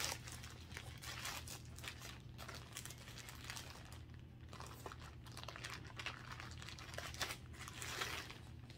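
Plastic packaging crinkling and crackling irregularly as it is handled and opened.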